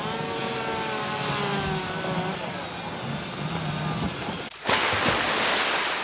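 Chainsaw engines running, a steady pitched drone that wavers slowly. About four and a half seconds in, after an abrupt change, a louder rushing hiss takes over.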